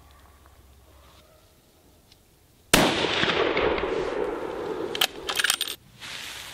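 A single rifle shot from a .325 WSM: a sharp report about two and a half seconds in, whose echo rolls on for about three seconds. A few sharp clicks come near the end, then the sound cuts off suddenly.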